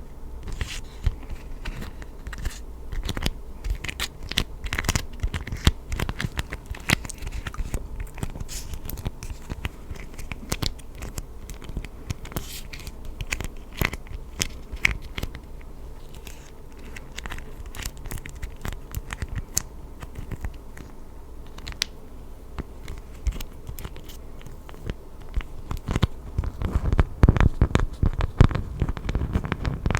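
Close-up crackling and crinkling: many small, irregular sharp clicks, with heavier low thumps and rustling near the end.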